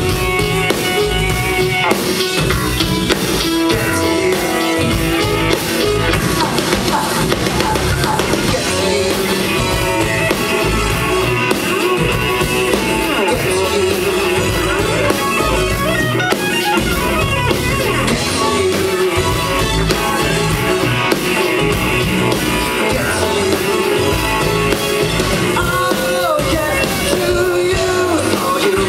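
Live rock band playing: electric guitar and drum kit, with a man singing lead vocals.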